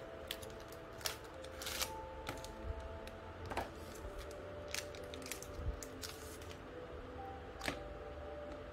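Cardboard box and foil bag being handled as a replacement phone screen is unpacked: scattered clicks and rustles, with two longer rustles about two seconds in and about six seconds in. Soft background music with held notes runs underneath.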